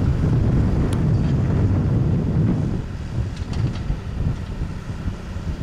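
Claas Celtis tractor engine running close by, with wind buffeting the microphone; the engine note eases off about three seconds in, and a few faint clinks follow.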